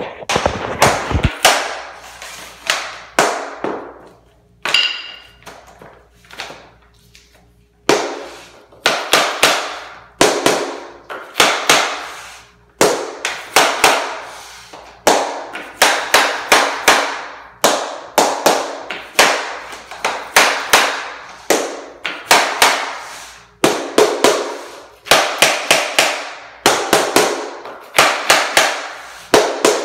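A two-faced mallet striking a plastic tapping block against the edge of a LifeProof vinyl plank, knocking its click-lock joint closed. The sharp taps come in quick runs of two to four, with a short pause between runs.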